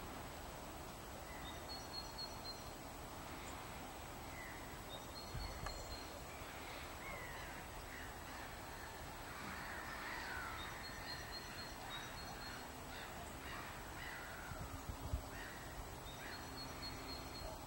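Faint calls of several wild birds. Short, thin high notes repeat every few seconds, and a run of lower sliding calls comes in the middle stretch. Two brief low thumps break in, one early and one later.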